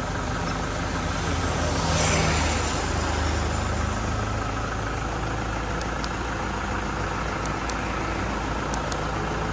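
A motor vehicle engine running steadily. Louder traffic noise swells about two seconds in, as something passes by, and a few faint clicks come near the end.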